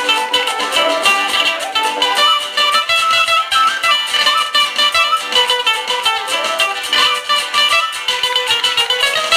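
Live Andean band music: strummed acoustic guitars under a quena flute melody.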